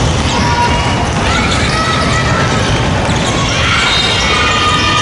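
A basketball game in a gym: a ball is dribbled on the hardwood court amid a steady din of voices from the players, benches and crowd. High squeaks come in about three and a half seconds in.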